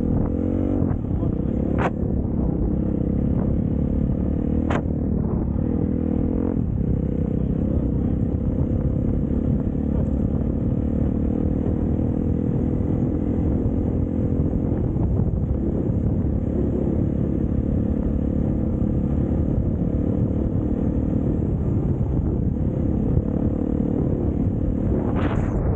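Dirt bike engine pulling away from near standstill, its pitch rising in the first second, then running at steady road speed along a rutted dirt track. A few sharp clicks at about two and five seconds in and again near the end.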